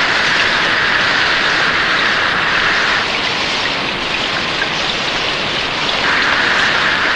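Heavy rain falling, a steady hiss of downpour as an animation sound effect. The hiss thins a little about three seconds in and fills out again about six seconds in.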